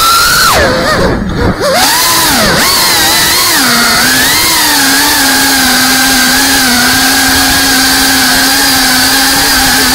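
FPV quadcopter's motors and propellers whining. The pitch drops steeply as the throttle is cut just under a second in, climbs back with a couple of swoops, then holds a steady whine with slight wavers.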